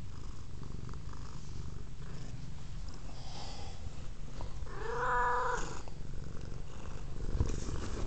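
Domestic cat purring steadily and loudly, close to the microphone, with a brief pitched sound lasting about a second, about five seconds in.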